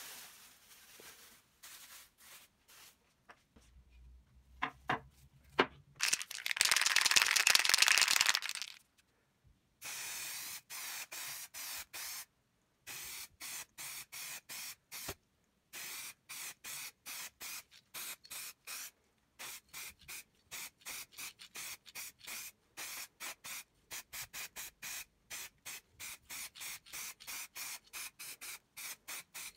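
Aerosol spray can spraying paint onto a metal panel: a few clicks, then one long, loud hiss a few seconds in, followed by a long run of short hisses in quick succession.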